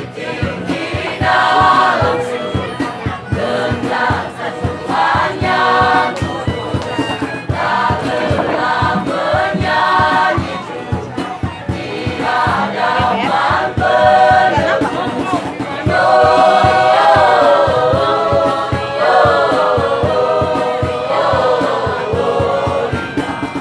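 Mixed choir of male and female voices singing together, short phrases at first, then longer held notes from about two-thirds of the way in.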